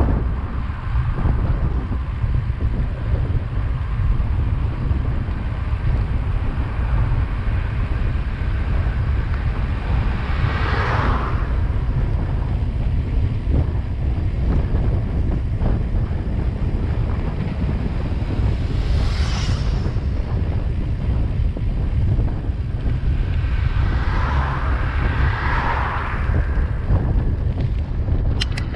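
Wind buffeting the microphone of a camera on a moving bicycle, a steady low rumble. Motor vehicles pass close by three times: about eleven seconds in, near nineteen seconds, and around twenty-five seconds. There is a brief click near the end.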